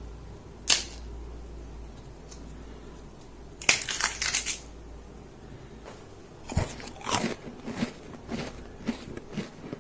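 Crisp fried rice papads (akki happala) snapping and crackling as they are broken and crushed by hand: one sharp snap about a second in, a burst of crackling around four seconds, then a run of crunches through the last few seconds.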